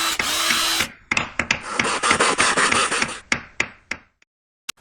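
A rasping, scraping noise broken by a quick run of sharp clicks and knocks, trailing off into a few spaced clicks, then one last sharp click near the end.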